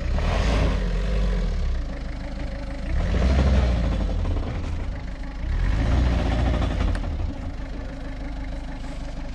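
Suzuki Vitara 4x4's engine revving hard in three surges and dropping back between them, as the vehicle is stuck in mud and trying to drive out.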